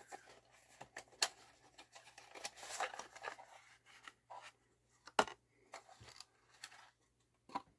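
Faint handling noises from a phono cartridge's plastic case and paper packaging being handled by hand: scattered light clicks and rustles, with a sharper click about five seconds in and another near the end.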